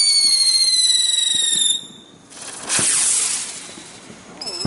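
Whistling fireworks: a shrill whistle sliding slowly down in pitch cuts off just under two seconds in. About a second later comes a loud, fading hiss, and another falling whistle starts near the end.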